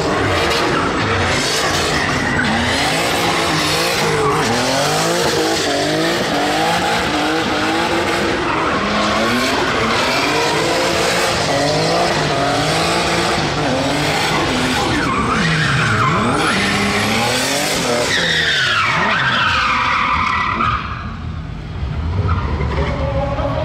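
Turbocharged Volvo 740 doing a burnout: the engine is revved up and down again and again while the spinning rear tyres screech and skid. About three-quarters of the way in the revs fall away briefly, and then the engine carries on at a lower, steadier note.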